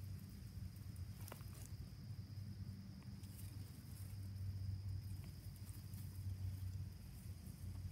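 Faint steady high-pitched chirring of insects in the grass, over a low rumble on the microphone, with a light click about a second in.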